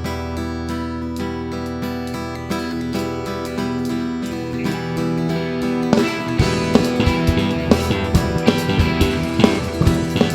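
Instrumental intro of a Brazilian gospel band: strummed acoustic guitar over bass, with a drum kit coming in with a steady beat a little past the middle.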